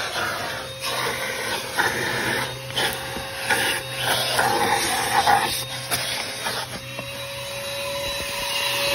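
Small 1.5-gallon wet/dry shop vac running with its crevice tool: a steady motor whine with an uneven rush and rattle as it sucks dirt out of car carpet crevices.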